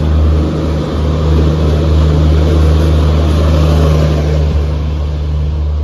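Long-distance passenger train's coaches rolling past at speed, with a loud, steady low drone from the louvred generator power car at the end of the rake as it goes by.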